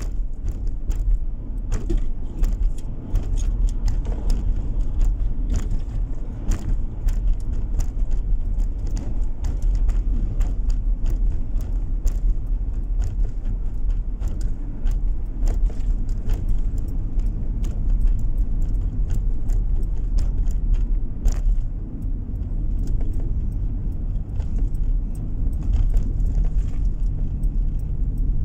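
A car driving, heard from inside the cabin: steady low road and engine rumble, with frequent small irregular clicks and rattles.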